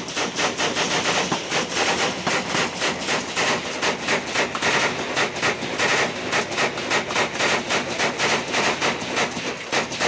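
Belt-fed 7.62 mm light machine gun firing one long continuous burst, about ten shots a second.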